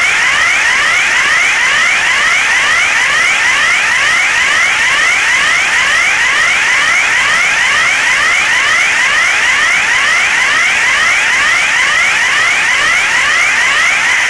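Electronic emergency alert tone: a loud, steady train of rapidly repeated rising sweeps, about two a second, sounding as the warning of an emergency broadcast.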